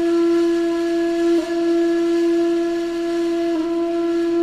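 A single low, flute-like wind instrument note held steadily, breaking off and restarting briefly twice: the viral TikTok sound that is played to cats to remind them they were worshipped in ancient Egypt.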